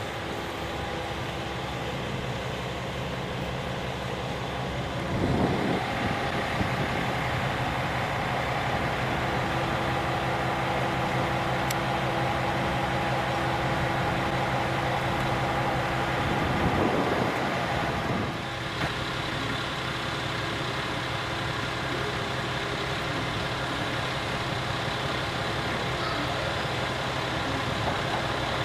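Diesel railcar engine idling with a steady hum. It grows louder about five seconds in and eases back down about eighteen seconds in.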